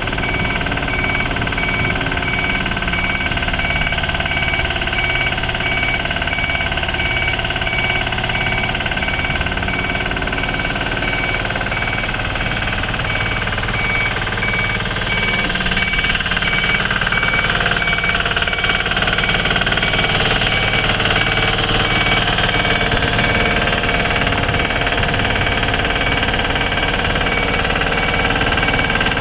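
Heavy-haul rig's diesel engine running steadily with a rattly knock, a steady high whine over it, as the multi-axle modular trailer is moved; it gets louder about halfway through.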